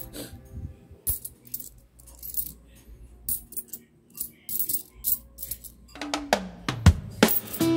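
Metal coins clinking against each other as a hand gathers and stacks them on a cloth-covered table: a string of light, irregular clinks. Guitar background music comes back in about six seconds in.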